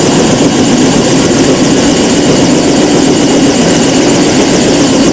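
Helicopter sitting on the ground after landing, its engine and rotor running loudly and steadily, with a steady high-pitched whine over the noise.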